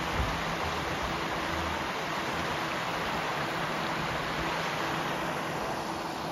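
Creek water rushing steadily over a low rock ledge, growing a little softer near the end.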